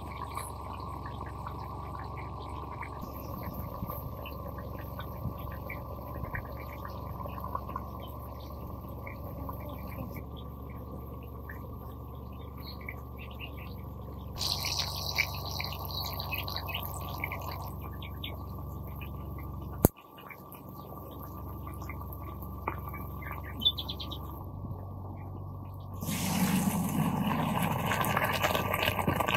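Birds chirping over a steady outdoor background, with a single sharp click about two-thirds of the way in. Near the end, hot water and boiled rice are poured from a pot into a metal colander, a louder splashing rush.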